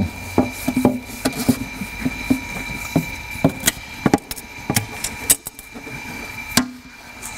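Irregular clicks, knocks and rubbing as a car's door window glass, with its rubber run channel attached, is handled and worked against the steel door frame. A steady high hum runs underneath.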